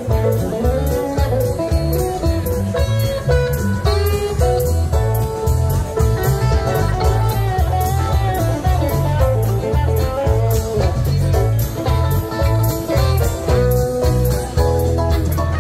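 Live band playing an instrumental passage: a guitar melody over bass and a steady drum beat, with no singing.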